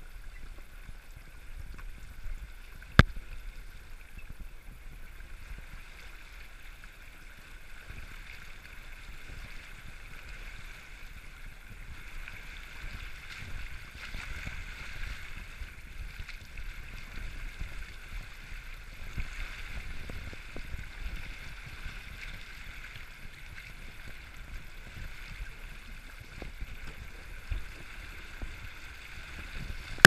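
Water rushing and sloshing against a 4x4 as it fords a river, over a low rumble, growing louder partway through. A single sharp knock sounds about three seconds in.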